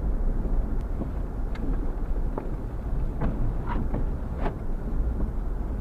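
Car driving through deep snow, heard from inside the cabin: a steady low rumble of engine and tyres, with several short knocks and clicks scattered through it.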